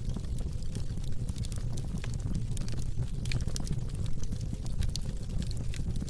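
Fire crackling: many small sharp pops and snaps, irregular and close together, over a steady low rumble.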